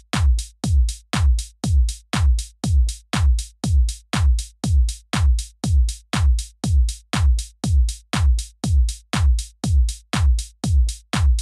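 Electronic background music with a steady drum-machine kick beat, about two beats a second.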